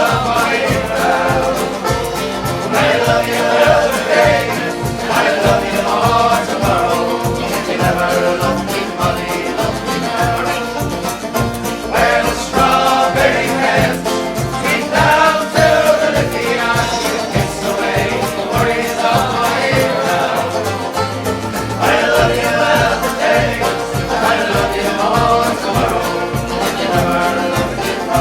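Folk band performing a song: several voices singing together over strummed guitar and a steady beat.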